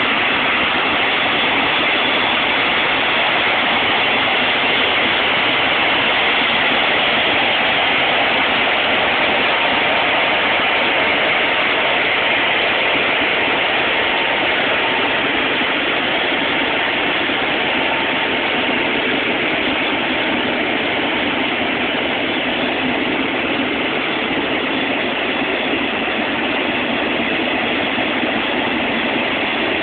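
Airbus A380's Rolls-Royce Trent 900 jet engines running at taxi power: a steady rushing hiss with a faint whine, unchanging throughout.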